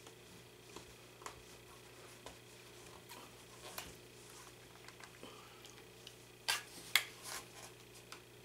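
Hand stitching a fabric strip through a coiled rag-rope basket: faint rustling and scattered light taps, with a few sharper clicks about six and a half to seven and a half seconds in, over a faint steady hum.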